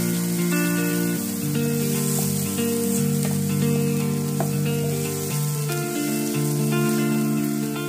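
Chopped tomatoes and onions sizzling in hot oil in a nonstick frying pan while a wooden spatula stirs them. Background music of held notes, changing about every half second, runs over the sizzle.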